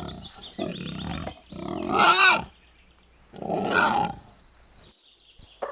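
Wild boar grunting and squealing in a series of rough calls, about four of them, the loudest about two seconds in. Birds chirp faintly in the background.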